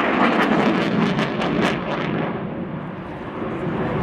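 Fighter jet passing overhead during a display: loud jet engine noise with a crackling rasp for the first couple of seconds, then fading somewhat.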